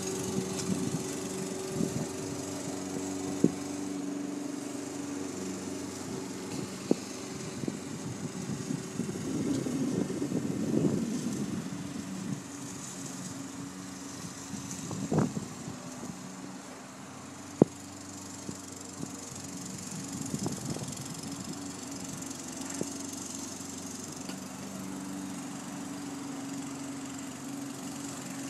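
Walk-behind gas lawn mower engine running steadily while being pushed across grass, swelling louder about ten seconds in. A few sharp clicks are heard along the way.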